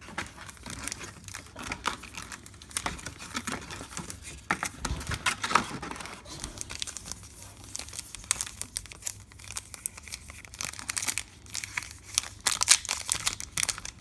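Foil trading-card pack wrappers crinkling as they are handled, with a burst of dense crackling near the end as a pack is torn open at its crimped top seal.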